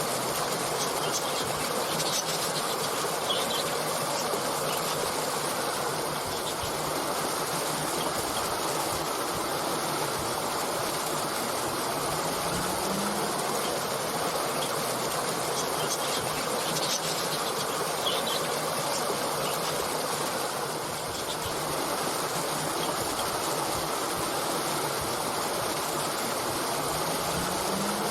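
Steady rush of a flowing stream, with a few faint, brief bird chirps about two seconds in and again a little past halfway.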